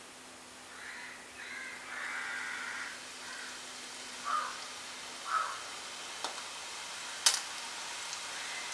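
Hot oil sizzling and bubbling in a pan as rice-flour murukku dough is pressed into it for deep-frying. A crow caws several times in the background in the first half, and two sharp clicks come about a second apart later on.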